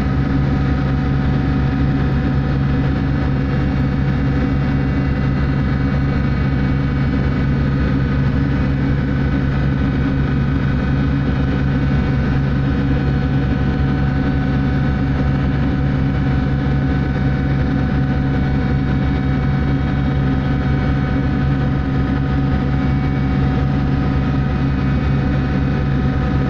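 Steady low drone of a survey ship's machinery running at an even pitch and level, with a constant hum and a few higher steady tones above it.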